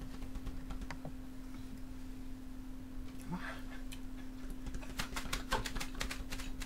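Faint steady electrical hum with scattered small clicks, which come thicker in the last couple of seconds.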